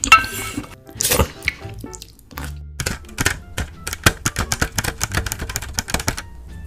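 Close-miked eating of spicy instant noodles: two loud slurps near the start and about a second in, then a quick run of sharp wet clicks and smacks as the noodles are chewed, over quiet background music.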